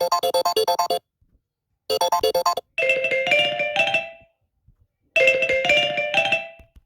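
Samsung Galaxy Note9 ringtones playing one after another: a quick run of repeated electronic notes that cuts off about a second in and briefly starts again, then a short chiming melody that rings out and fades, played twice.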